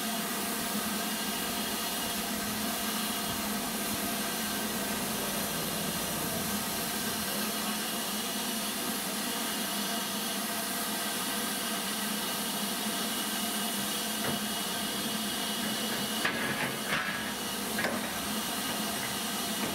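Steady hiss of steam from an LMS Black 5 steam locomotive at a standstill, with a few short knocks near the end.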